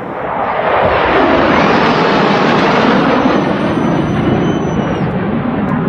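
Jet engines of low-flying military display jets passing overhead: a loud roar that builds over the first second and then holds steady, with a thin high whine on top that drops in pitch and cuts off about five seconds in.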